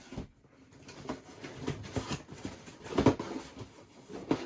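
Handling noise: irregular knocks, taps and rustles of boxed action figures being picked up and moved, loudest about three seconds in.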